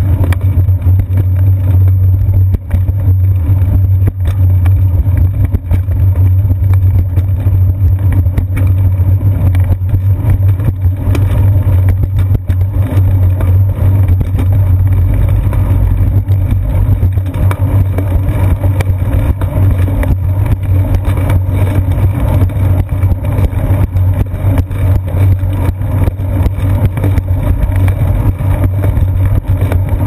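Riding noise of a bicycle picked up by a seat-post-mounted GoPro Hero 2: a loud, steady low rumble from the tyres rolling and the frame vibrating, with many small knocks and rattles as it rides over the pavement.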